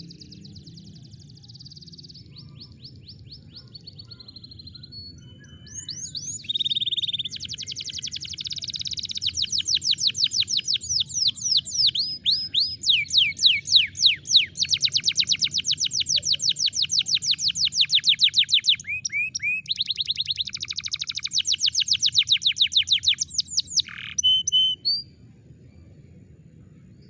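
Domestic canary singing a long song of fast rolled trills and rapid runs of repeated sweeping notes. It starts softly, becomes loud about six seconds in, and breaks off shortly before the end. A steady low hum lies beneath.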